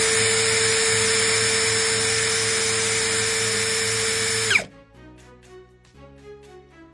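D10A cordless lithium drill running free in its high-speed gear with a steady whine, spinning up at the start and winding down and stopping about four and a half seconds in; its no-load speed reads about 1712 rpm.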